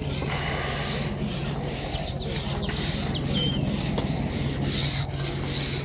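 Rubbing and scraping of a carbon fishing pole being handled while a hooked carp is played, coming and going in patches of hiss.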